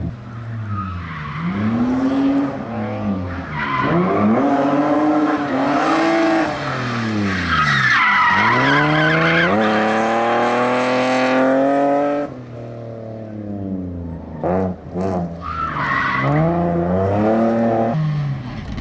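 Rally car engine revving hard through a slalom, its pitch climbing and falling again and again as the driver accelerates, lifts and changes gear. Tyres squeal over the engine about eight to twelve seconds in.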